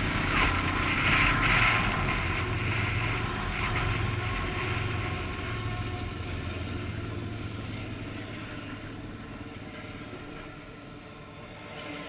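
Off-road motorcycle running, with wind noise on the helmet microphone, loudest in the first two seconds and then growing steadily quieter as the bike eases off beside a passing freight train. A low steady hum runs underneath.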